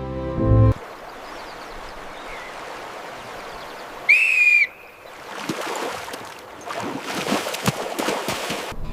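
A single short whistle, steady in pitch, about four seconds in, over a rushing outdoor hiss. A low musical hit ends the background music just before, and a rougher crackling noise with scattered ticks follows in the second half.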